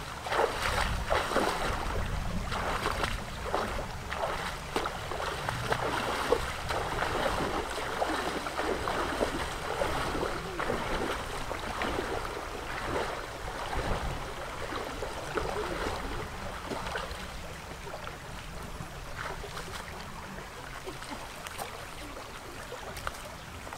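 Feet wading through a shallow stream, water splashing with each step. The splashing thins out over the last few seconds, leaving a steadier sound of running water.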